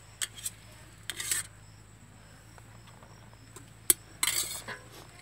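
Metal serving spoon clinking and scraping against steel cooking pots: a few sharp clinks and two short scrapes.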